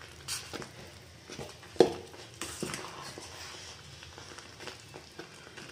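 Steel spoon stirring thick sweet pongal in a metal pot on a low flame, with soft scrapes and scattered clinks of the spoon against the pot, and one sharper knock a little under two seconds in.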